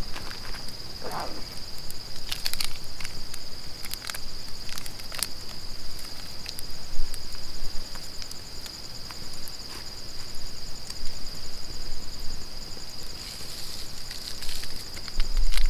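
A steady high-pitched trill of night insects, with a few sharp crackles from a small campfire. There is a rustle of twigs near the end.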